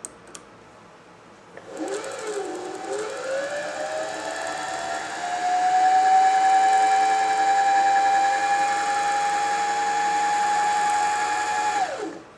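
Janome 525S sewing machine's motor running at full speed to wind a bobbin. A whine starts about a second and a half in, rises in pitch over the first few seconds, then holds steady. It stops near the end with a quick drop in pitch.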